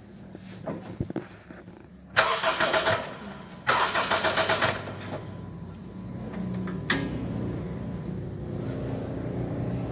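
Honda Civic FD engine cranked by the starter twice in short, pulsing bursts; after the second crank it catches and settles into a steady idle, with a single click a little before the end.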